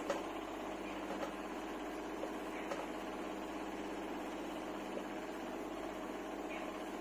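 Steady electrical or mechanical room hum with several even tones, with faint scratches of a marker writing on a whiteboard.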